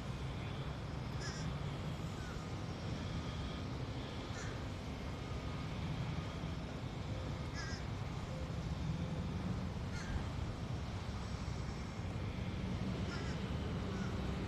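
Birds giving short calls every two to three seconds, about six in all, over a steady low rumble.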